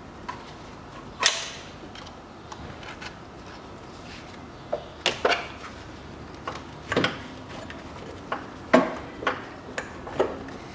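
Irregular clicks and knocks of a metal hook tool and car parts while a coolant hose, set on sealant, is pried off its radiator pipe. A sharp clack about a second in and another just before nine seconds are the loudest.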